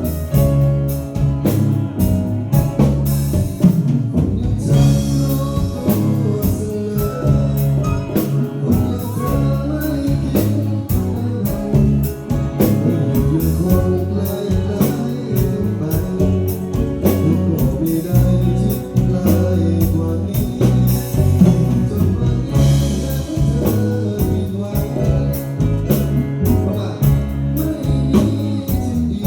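Live band playing a song: drum kit keeping a steady beat under guitar and bass.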